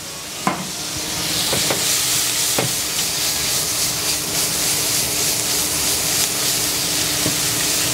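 Chestnut and shimeji mushrooms sizzling in nut-brown butter in a stainless steel frying pan. The sizzle grows louder about a second in as the pan is worked and tossed, with a few light knocks of spatula and pan and a faint steady hum underneath.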